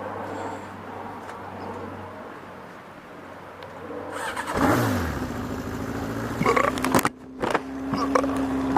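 Yamaha XJ600 motorcycle's air-cooled inline-four engine being started about four and a half seconds in, the pitch sliding down as it catches, then settling into a steady idle.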